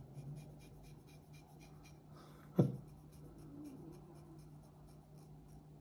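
Quiet handling of a fixed-blade knife: a faint run of fine scratchy ticks, with one sharp knock about two and a half seconds in.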